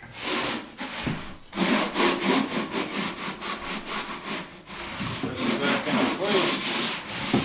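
A tile float rubbing and scraping over a dimpled plastic uncoupling membrane in quick repeated back-and-forth strokes, pressing the mat down into the thinset mortar beneath it.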